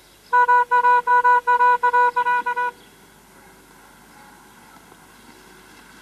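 A rapid series of about ten short horn-like toots, all at one steady pitch, lasting about two and a half seconds and stopping abruptly, followed by faint outdoor background.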